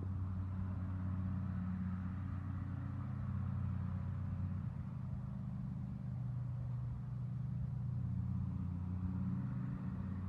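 A motor running with a steady low hum, easing off a little around the middle and building again.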